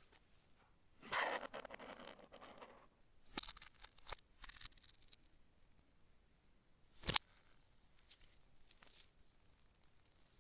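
Unboxing packaging handled close to the microphone: crinkling, rustling paper or plastic in a few short spells, then a single sharp click about two-thirds of the way through.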